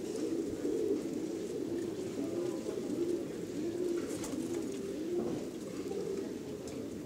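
Domestic fancy pigeons cooing, several birds at once, with repeated rising-and-falling coos overlapping one after another.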